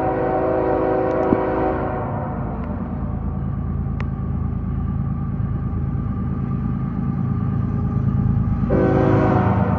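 Canadian Pacific freight train led by GE ES44AC diesel locomotives approaching, its air horn sounding a long chord that stops about two seconds in. The low locomotive rumble grows louder as it nears, and the horn sounds again near the end.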